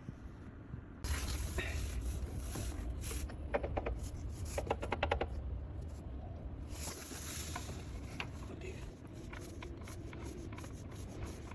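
Scraping and rubbing of hand-tool work on the engine's front end, with a quick run of even clicks about three and a half seconds in, over a low steady rumble.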